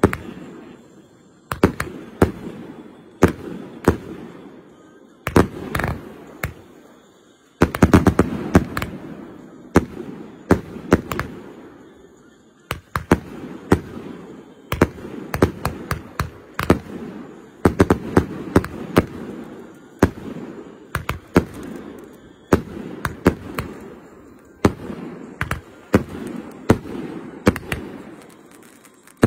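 Aerial fireworks bursting one after another overhead: sharp bangs come in irregular clusters of several quick reports, each trailing off in an echoing rumble.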